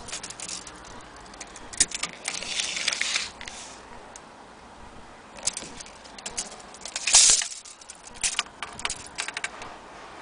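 Irregular metallic clicks and rattles from an old wall clock being handled, coming in several short bursts; the loudest is about seven seconds in.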